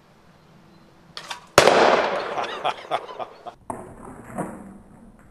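A few faint clicks as the rubber-band pistol fires its 3D-printed arrow, then about a second and a half in a sudden loud bang as the arrow bursts a pressurized bottle on the target, dying away over about two seconds with rattling clicks.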